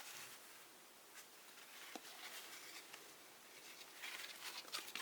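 Faint rustling and light handling sounds, with a couple of small clicks and a busier patch of rustling about four seconds in.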